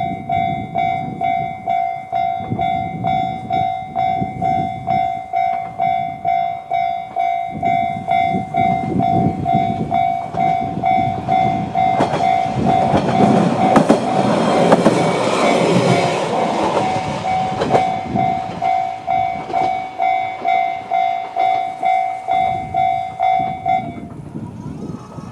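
Japanese level-crossing alarm sounding the JR standard electronic tone, a chime repeating about one and a half times a second, which stops near the end. Midway a Yamagata Railway YR-880 diesel railcar passes over the crossing, its wheels clacking over the rail joints.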